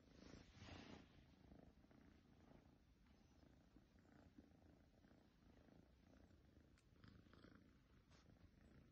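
A domestic cat purring softly: a low, steady rumble with a few faint ticks over it.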